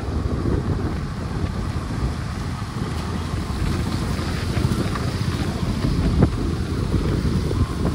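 Wind noise on the microphone of a moving motorcycle, over a steady low rumble and the hiss of tyres on a wet road.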